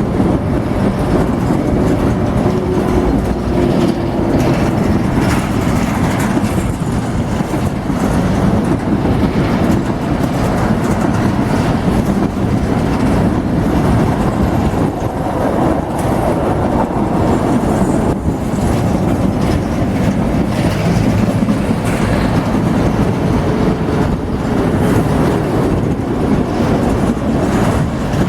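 Train wagons rolling past, a steady rumble of steel wheels on the rails with repeated clicking over the rail joints.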